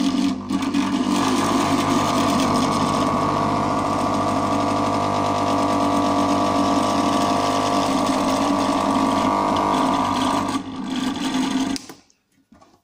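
No-name hot air rework station running with a loud, steady mechanical buzz, the whole unit vibrating so hard it moves on the bench, which the owner puts down to a vacuum seal on the bottom of the unit left in place. It stops suddenly near the end as it is switched off.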